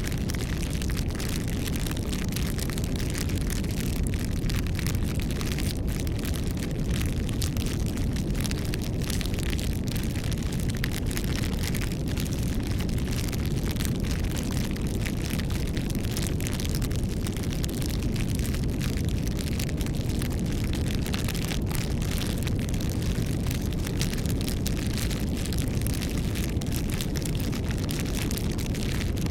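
Campfire burning: a steady low rush of flames with many small crackles and pops from the burning wood.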